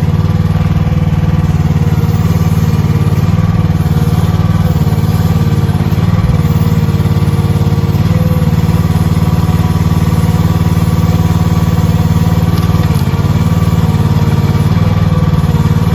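Chinese mini excavator's small engine running steadily at close range, its note dipping slightly now and then as the log is handled.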